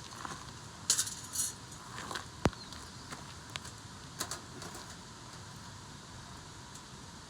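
Camp cookware and utensils being handled: a handful of light metal clinks and knocks over the first five seconds, the sharpest about two and a half seconds in.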